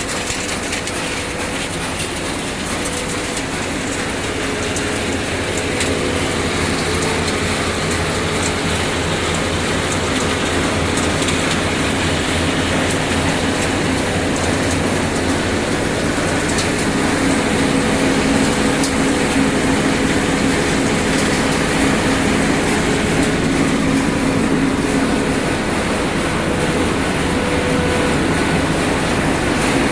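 Refrigerator dismantling and recycling line machinery running, a continuous dense rattle and clatter over a steady mechanical hum. It gets a little louder a few seconds in and again about halfway through.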